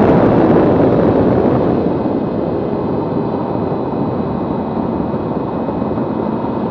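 Nissan GT-R at track speed, heard from a low outside-mounted camera: a loud rush of wind and tyre noise with only a faint engine note. The rush falls away over the first couple of seconds as the car brakes from the straight, then holds steadier and lower through the corner.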